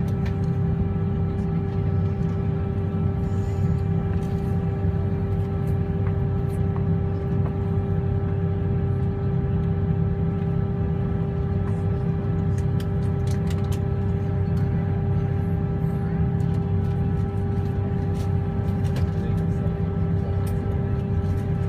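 Jet airliner cabin noise: the engines running at a steady setting, heard as a low rumble with a constant whine, holding even throughout.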